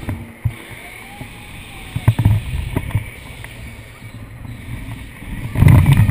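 Half-pipe thrill ride car running along its track: a steady low rumble with a few sharp clacks about two seconds in, then a much louder rumble and rattle near the end as the car swings through the half-pipe.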